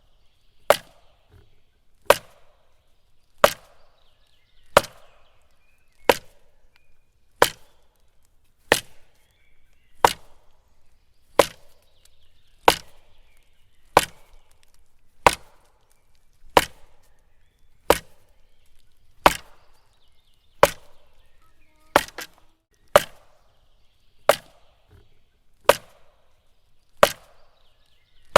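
A tree in a forest being hit with sharp, chopping wooden strikes, evenly paced about every 1.3 seconds. Each blow has a brief ring after it.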